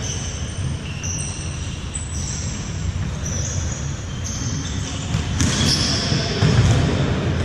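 Futsal ball being kicked and bouncing on a wooden indoor court in a large echoing hall, with short high squeaks of players' shoes on the floor over a steady low rumble. One sharp ball strike about five and a half seconds in is the loudest sound.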